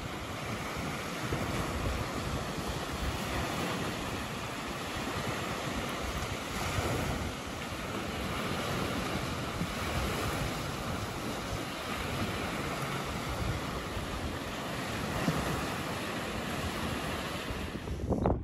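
Sea surf washing in steadily, with wind blowing on the microphone: an even rushing noise that rises and falls a little.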